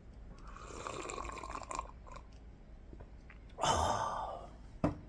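A person slurping sips of hot coffee from a mug, the loudest slurp or breath about three and a half seconds in, followed by a short click.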